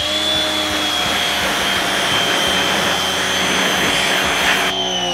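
Giraffe Tools Grandfalls electric pressure washer rinsing a bike through its 40-degree fan nozzle: the hiss of the water spray with a steady high whine from the pump motor. The whine dips slightly and everything stops at the end as the trigger is released.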